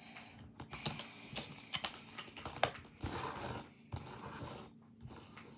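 Slime being worked by hand: an irregular run of small clicks and pops, with squishing and a couple of short rustling hisses.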